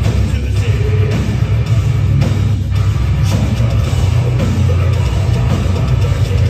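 A metal band playing live and loud, heard from the audience: heavily distorted guitars, bass and a drum kit.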